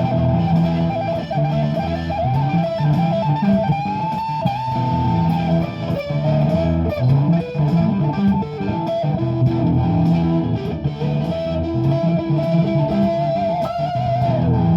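Improvised live-looping jam: a guitar plays a sustained lead line with pitch bends over repeating looped lower guitar and bass parts.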